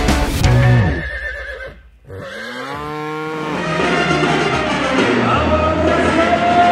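Loud music stops about two seconds in, followed by one horse whinny lasting about a second. Crowd noise and brass band music then build, with a held horn note near the end.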